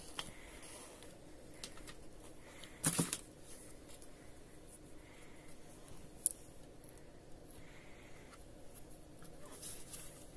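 Clicks and a short clatter from the housing and small parts of a Vitek VT-1201 iron being handled during disassembly, the loudest clatter about three seconds in and a sharp click about six seconds in.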